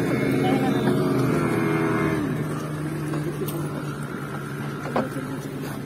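Speedboat's outboard motor running, then dropping in pitch and level about two seconds in as it throttles back, leaving a low steady hum. A single short knock near the end.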